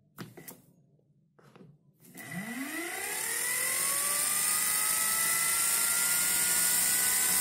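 A 220 V universal (mixer/drill) motor with a drill chuck, run on a 12 V battery: a few clicks, then about two seconds in it spins up with a rising whine that levels off into a steady high-speed run. It runs only on the weak residual magnetism left in its field, so it has to be hand-started and gives high speed but little torque.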